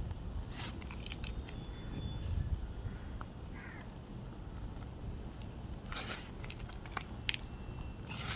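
Gym chalk being crushed, giving scattered crisp crunches and crackles, with a thicker cluster about six seconds in, over a steady low rumble.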